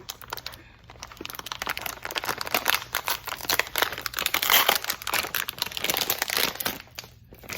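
A Cutie Tooties slime toy's crinkly wrapper being torn open and unwrapped by hand: dense crackling and rustling that starts about a second in, is loudest around the middle, and stops briefly near the end.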